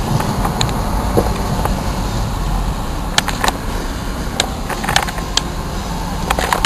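Cabin noise inside a moving Ford Mustang: a steady low rumble of engine and road, with a few scattered sharp clicks and knocks.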